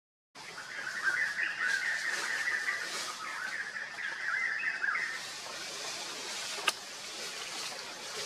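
Birds chirping in a continuous warbling chorus for about four seconds, over a steady outdoor hiss, with a single sharp click a little later.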